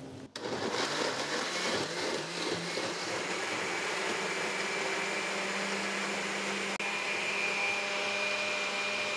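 Countertop blender motor running steadily, puréeing soaked dried chiles with broth into a thin sauce.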